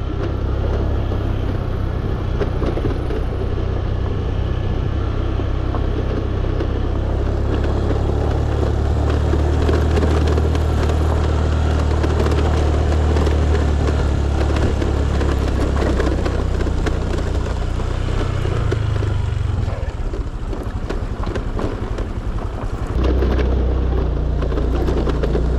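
Honda Click scooter's single-cylinder engine running under load as it rides over a rough, rocky dirt track, with a constant low rumble and many small knocks and rattles from the scooter bouncing over stones and gravel.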